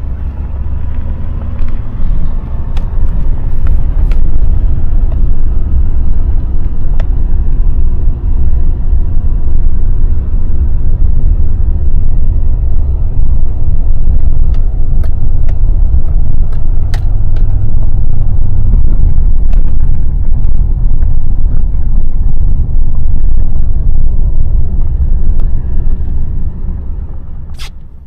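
Steady low rumble of a Chevrolet pickup truck driving over a snow-covered gravel road, heard from inside the cab, with scattered sharp ticks. It fades out near the end.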